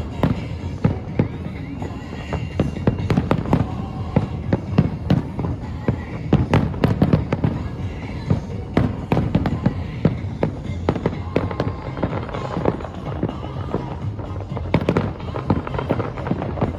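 Fireworks display: aerial shells bursting in rapid succession, many sharp bangs a second over a continuous low rumble, with music playing along.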